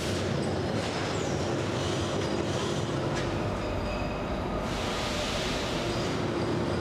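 Tumble-belt shot blasting machine running: a loud, steady mechanical rattle with a constant hum.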